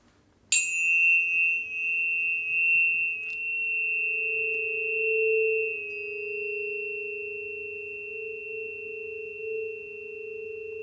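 Planetary tuning fork struck once about half a second in, then ringing with a long, steady pure tone and a fainter high overtone, slowly fading.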